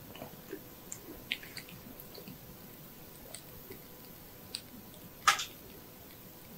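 Soft scratching and crackling from a thin feather-tipped ear wand being twirled inside the ear canal, picked up by a small microphone held right against the ear. There are a handful of faint ticks and one louder crackle a little past five seconds in.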